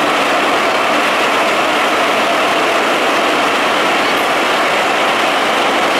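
Moscow Metro Ezh3 subway car running between stations, heard from inside the carriage: a loud, steady noise of wheels on rail and the running gear, with no change in level.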